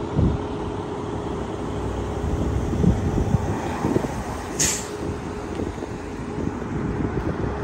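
Fire department command SUV driving past and pulling away, its engine and tyres a steady rumble. A short hiss cuts in about four and a half seconds in.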